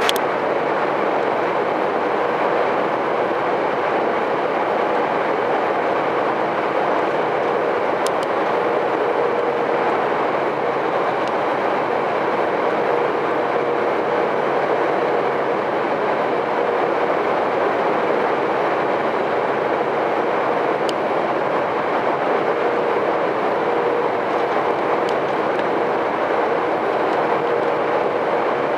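Steady engine and road noise of a lorry cruising on a motorway, heard inside the cab, with a droning hum that fades in and out.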